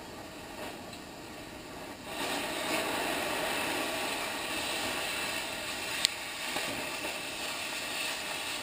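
Cutting torch hissing steadily as it slices the heads off steel frame rivets, growing louder about two seconds in, with one sharp pop about six seconds in.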